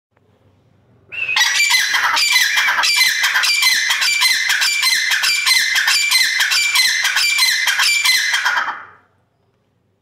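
Birds squawking and calling loudly and without pause, in a fast repeating pattern. It starts suddenly about a second in and fades out near the end.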